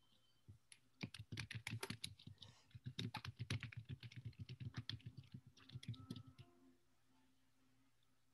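Typing on a computer keyboard: a quick, uneven run of key clicks starting about a second in and stopping after about six seconds.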